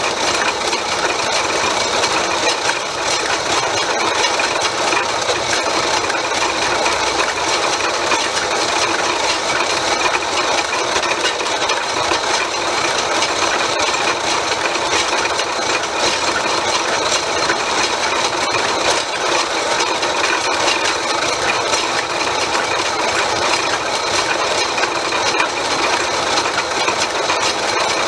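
An old South Bend metal lathe running steadily at an even speed, a continuous mechanical whir with no change in pitch or level.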